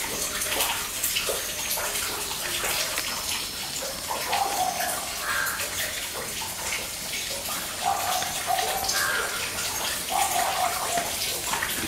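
A steady hiss like running water, with short, soft calls from hens clucking every second or two.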